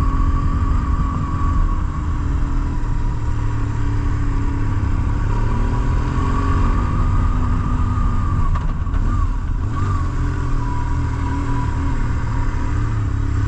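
BMW R1150GS Adventure's boxer twin engine running steadily under way, with a low rumble, mixed with wind and road noise on the bike-mounted microphone.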